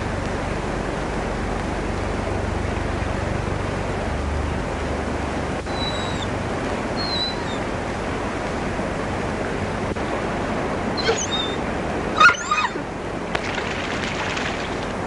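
A dog howling in a few short, high, wavering cries about eleven to twelve seconds in, the loudest near the end, over a steady hiss. A couple of faint high chirps come earlier.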